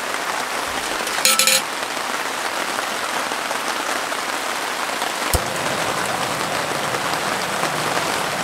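Steady rain falling. About a second in comes a short metallic clatter as a stainless kettle is set down on a camping gas stove, and about five seconds in a single sharp click.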